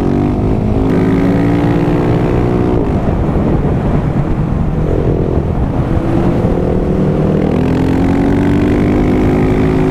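Husqvarna 701 supermoto's single-cylinder engine under way: it pulls rising in pitch for about three seconds, eases off, then climbs again over the last couple of seconds.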